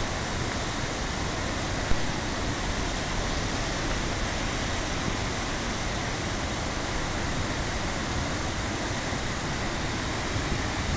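Steady rush of whitewater pouring down a rocky stream cascade in spate, with one brief knock about two seconds in.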